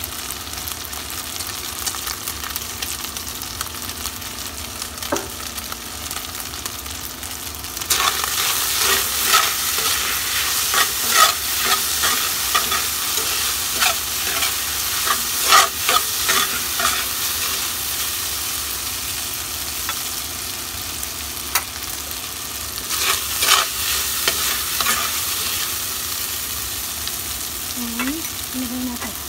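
Minced meat sizzling in a frying pan while a spatula stirs and scrapes it around the pan. About eight seconds in the stirring turns brisker and louder, with bursts of scraping strokes, and another burst comes later on.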